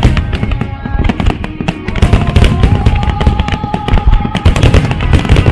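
Fireworks bursting and crackling in quick, irregular succession over music played on loudspeakers, with a long held note in the middle.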